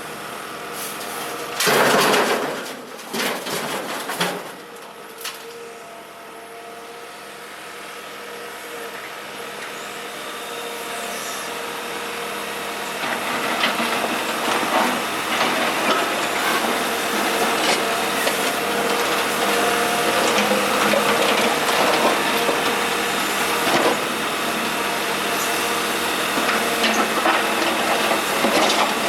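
Kobelco SK125W wheeled hydraulic excavator at work, its engine running and growing louder, with clattering and scraping of broken asphalt from about halfway on. A few loud bursts of noise come near the start.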